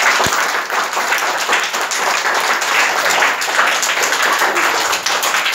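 A group of schoolchildren applauding, many hands clapping steadily together.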